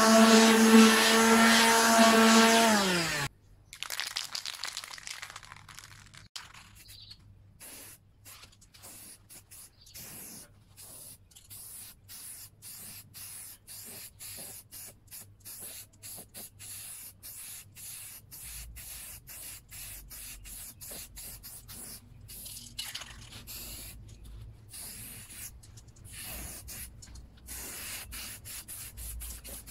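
Electric palm sander running with a steady hum, then switched off and winding down about three seconds in. After that, an aerosol spray-paint can hissing faintly and on and off.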